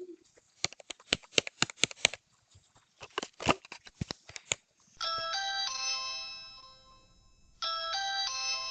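A flurry of sharp clicks and taps on a Ring video doorbell, then about five seconds in the doorbell's own chime, a short tune of a few stepped notes that rings out and fades, sounding again near the end: the button has been pressed and the doorbell is ringing through.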